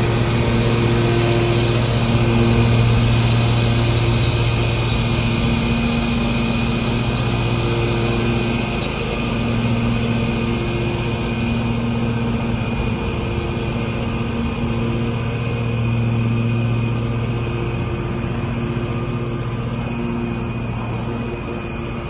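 Exmark Turf Tracer 48-inch walk-behind mower's engine running at a steady pitch while mowing, slowly fading as the mower moves away.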